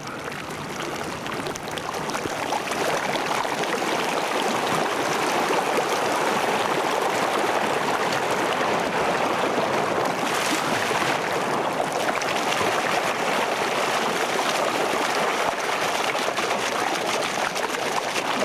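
Steaming hot water flowing and rushing across a paved street, a steady wash of water noise that grows louder over the first few seconds, then holds.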